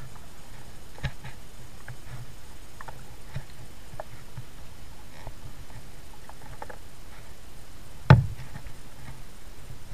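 Kayak being paddled, with scattered small clicks and water sounds from the paddle strokes and one loud knock about eight seconds in.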